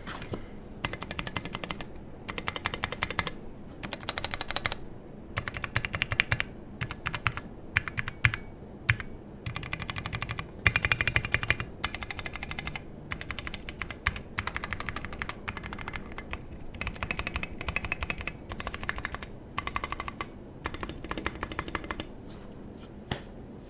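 Modifier keys on a 60% mechanical keyboard clacking in quick bursts of repeated presses, with short pauses between bursts. The keyboard has stock Halo True tactile switches on a brass plate, SA-profile PBT keycaps and no foam, and it sits directly on the desk without a deskmat.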